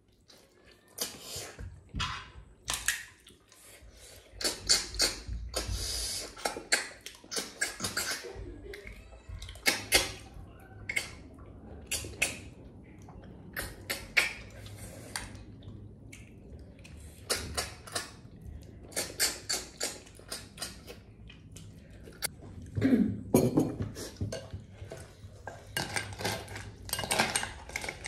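Close-up eating sounds from snail curry eaten by hand: irregular slurps as snails are sucked from their shells, with shells and fingers clinking on a steel plate, and a serving spoon scraping in a glass bowl near the end.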